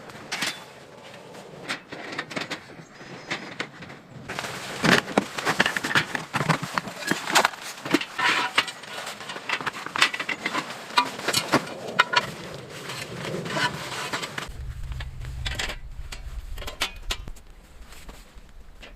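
Busy handling noises, a quick run of clicks, knocks and rustles, for about ten seconds. Then a low steady hum starts and runs under faint clicks near the end.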